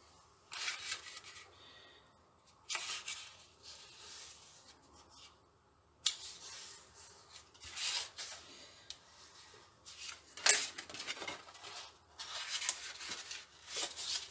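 A strip of scored cardstock being handled and folded along its score lines, giving several short bursts of paper rustling and rubbing, with one sharper click about ten and a half seconds in.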